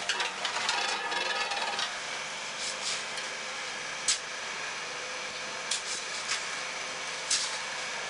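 A shovel scraping and scooping damp concrete mix off a concrete floor, with a few sharp knocks, over the steady hum of running machinery.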